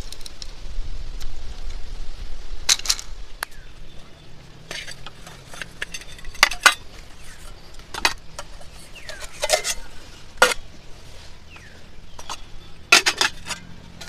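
Cookware and utensils clinking and knocking in scattered sharp strokes, some in quick clusters: about three seconds in, in the middle, and near the end.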